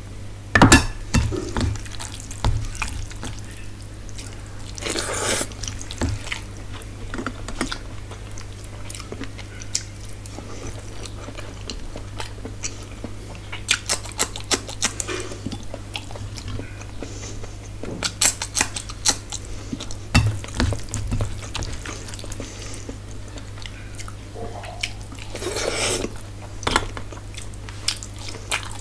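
Close-miked mukbang eating: chewing, a hand mixing rice and curry, and now and then a clink of steel bowls, over a steady low hum.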